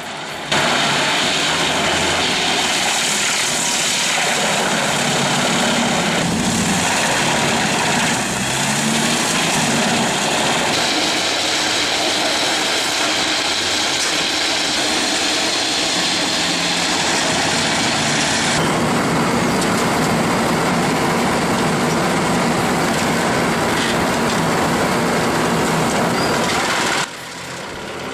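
Heavy forestry machinery running under load: a loud, steady mechanical din of engine and working parts. Its character changes abruptly three times and it drops off near the end.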